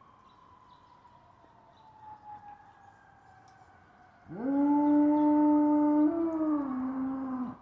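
German shepherd dog howling at fire truck sirens: one long howl starts about four seconds in, holds a steady pitch, steps up briefly and then drops before it cuts off. Before it, a faint siren slowly falls in pitch.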